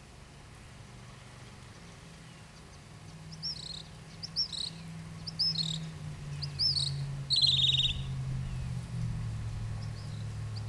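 A bird chirping: a series of short, sharp notes about a second apart, starting about three seconds in and ending in a brief buzzy rattle near the eight-second mark, over a steady low hum.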